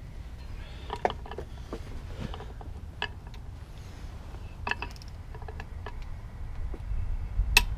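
Scattered metallic clicks and clinks from a torque wrench and spindle socket working the front wheel bearing adjusting nut on a Dana 60 axle, as the nut is tightened toward 50 foot-pounds and the hub is turned. The sharpest clicks come near the end.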